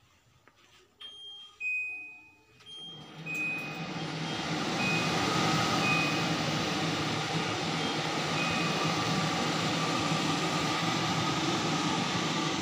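Glen kitchen chimney (range hood) control panel beeping as its buttons are pressed, then its blower fan starting about three seconds in with a steady rushing whoosh that grows louder over the next few seconds and holds. A few more short beeps sound over the fan.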